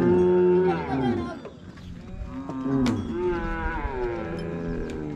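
Several long-horned cattle mooing in overlapping low calls: a loud one in the first second, then more calls from about two and a half seconds in. A single sharp click near the middle.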